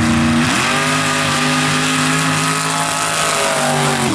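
Mud racing buggy's engine revving at the line, then launching at full throttle. Its pitch dips briefly and climbs about half a second in, then holds steady and high through the run, with a short dip near the end.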